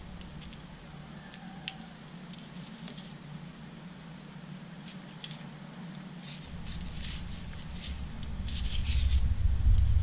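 Small clicks and scratches of fingers handling jumper-wire connectors and small circuit boards, growing busier in the second half. A low rumble comes in about two-thirds through and grows louder, becoming the loudest sound near the end.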